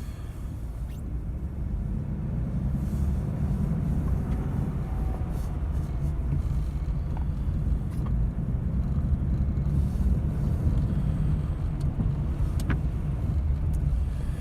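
2007 Dodge Dakota pickup driving forward, a steady low rumble of engine and road noise that builds over the first couple of seconds.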